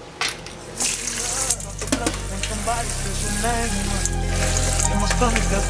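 Kitchen tap water spraying onto cranberries in a stainless-steel colander in the sink. Background music with a steady bass comes in about a second in and gets louder.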